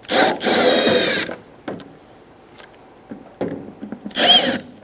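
T20 Torx screws in the door being backed out with a driver bit: two spells of fast, dense clicking, one at the start lasting about a second and a shorter one near the end, with small knocks between.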